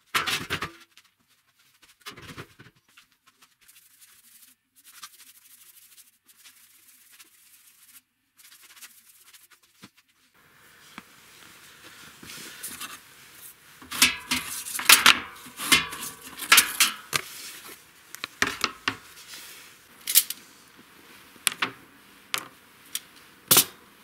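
Stainless-steel spoons and forks rattling and clinking in a perforated steel utensil holder as it and the other items are handled and set down. There are a few knocks near the start, then a long run of sharp clinks over the last ten seconds.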